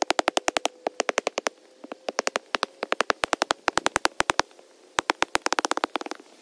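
Steel plate hand tamper striking a sand base over and over: rapid, sharp, evenly spaced thuds, about nine a second, in runs broken by brief pauses.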